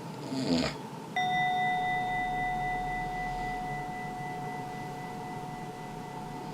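A snoring breath, then about a second in a single struck bell tone that rings out and fades slowly over several seconds.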